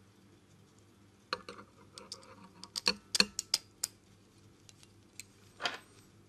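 Light clicks and taps of small metal and plastic RC helicopter parts being handled during assembly. There is a cluster of them a little after the start, a single click later, and a brief rub near the end.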